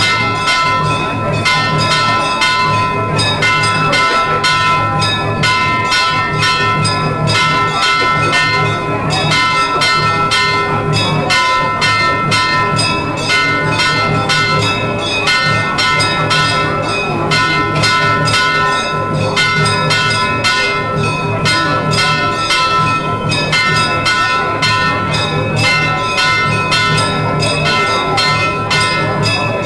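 Temple bells ringing continuously in rapid, even strokes, their ringing tones sustained throughout, with a low pulsing drone beneath.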